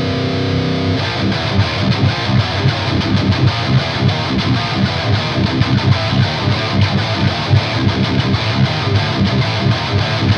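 High-gain electric guitar played through the Fortin Nameless amp-sim plugin into a Randall Satan tube amplifier's power amp. A chord rings out for about a second, then fast riffing of short, choppy low notes.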